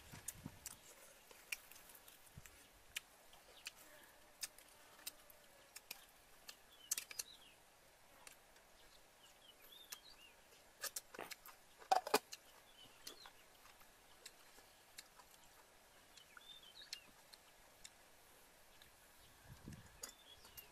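Faint eating sounds: scattered sharp clicks of a spoon on a plate and of chewing, loudest in a short cluster about twelve seconds in. Short bird chirps come now and then in the background.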